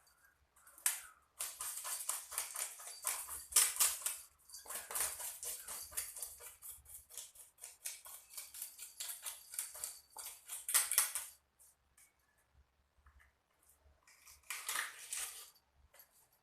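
Fish being scaled by hand: a blade scraping rapidly over biawan (kissing gourami) scales in fast, scratchy strokes. The strokes come in three runs with short pauses between them.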